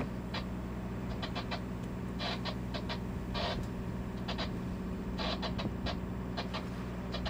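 Sailing yacht's inboard diesel engine running steadily. Over it come irregular clusters of short, high chirps or squeaks, a few at a time, about once a second.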